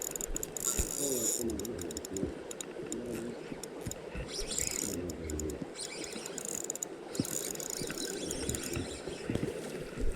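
Spinning reel being cranked in a lure retrieve, its gears giving a fast clicking, ratcheting whirr.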